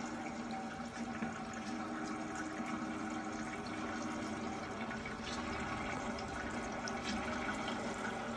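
Creators Inc grist mill rain lamp running with water in place of its usual mineral oil: water trickles down the strands and patters steadily into the brass basin, over a steady low hum.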